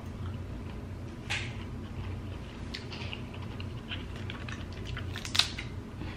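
Small clicks and crackles of Dungeness crab leg shells being handled and pulled apart by hand, with a sharper snap about a second in and another near the end. A low steady hum runs underneath.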